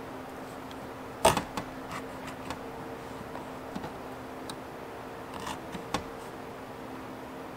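Scattered sharp clicks and taps of hands working at a metal plate and its fasteners set into a fabric wall, the loudest about a second in. A faint steady hum runs underneath.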